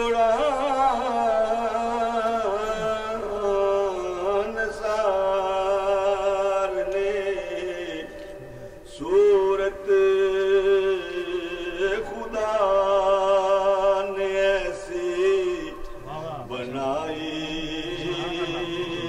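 A man's voice chanting unaccompanied into a microphone: Islamic devotional recitation in long, held, wavering notes, with a couple of short breaths between phrases.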